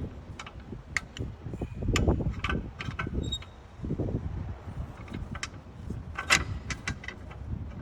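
Metal hand tools clinking and clanking at a rear brake caliper while a piston-compression tool is fitted, with a string of irregular sharp clicks and a few duller knocks.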